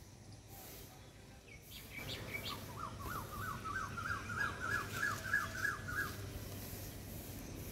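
A bird singing a fast run of short rising notes, about four a second, for some three seconds in the middle, after a few higher chirps.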